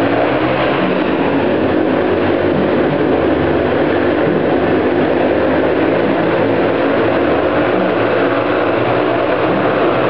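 Several motorcycle engines running loudly and steadily as the bikes circle inside a steel-mesh Globe of Death.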